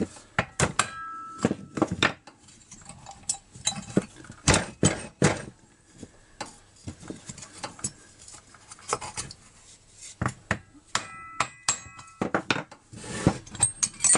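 Hammer blows on a wooden block held against a chainsaw's ignition-magnet flywheel, used to shock it loose from its tapered crankshaft without a puller: a series of irregular sharp knocks, some with a short metallic ring. Near the end comes a quick metallic clatter as the flywheel comes free.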